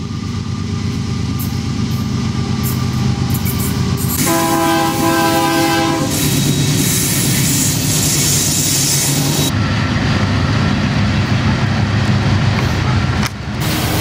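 Freight train pulling in behind a diesel locomotive: a steady low rumble of engine and rolling wheels grows louder. About four seconds in, the locomotive horn sounds once for about two seconds. Then a loud high hiss lasts for about three seconds.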